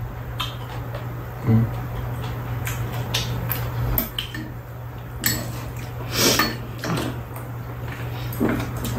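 Metal chopsticks and spoons clicking and tapping against ceramic bowls and dishes during a meal, in scattered irregular strikes over a steady low hum.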